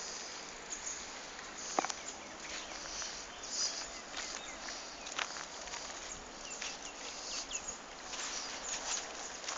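Animal calls: many short, high chirps scattered over a steady hiss, with one sharper click about two seconds in.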